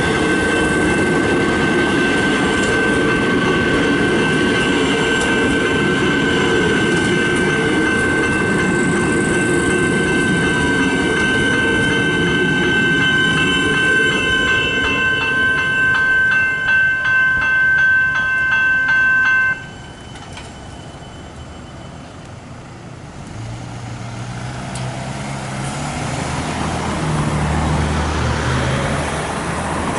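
Level crossing warning bell ringing continuously over the rumble of Melbourne Metro electric suburban trains passing over the crossing. The bell cuts off suddenly about two-thirds of the way through, which at this crossing marks the boom gates rising. After that a road vehicle's engine rises near the end.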